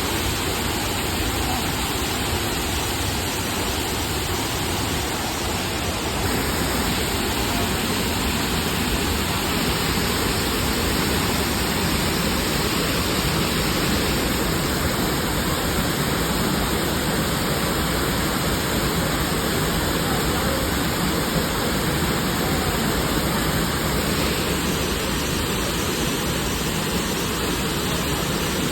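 Burney Falls waterfall: a loud, steady rush of falling water with no breaks, shifting a little in tone a few times.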